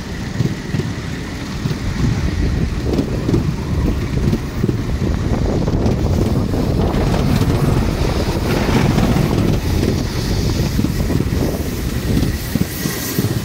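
Rumble of a miniature railway passenger carriage running along the track, with wind buffeting the microphone.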